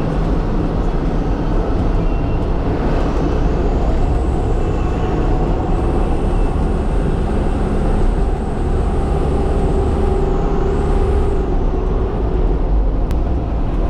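Cargo truck's engine running steadily with road noise, heard from inside the cab while driving.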